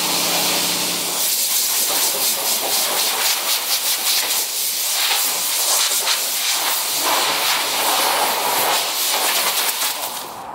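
Compressed-air blow gun hissing as sanding dust is blown off the primed bodywork of a Land Rover 110, fluttering in short spurts for a few seconds; the hiss drops away near the end.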